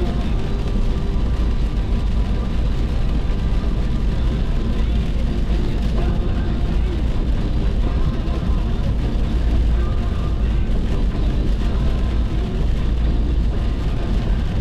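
Steady low rumble of a car driving at highway speed, heard from inside the car, with a faint indistinct voice underneath.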